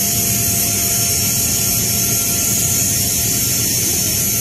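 Steady jet-engine noise heard from inside a transport aircraft's cargo hold: a loud, even hiss with a high whine and a low hum underneath, unchanging throughout.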